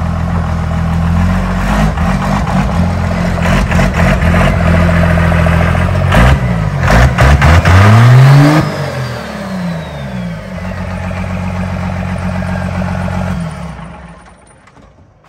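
First-generation Dodge Ram diesel engine, its exhaust leaving through a hood stack capped with a metal trash can, revved up and down several times, then held to one big rise in pitch that is the loudest point and puts out thick black smoke. After it a high whistle falls away, the engine settles back to a steady run, and it is shut off near the end.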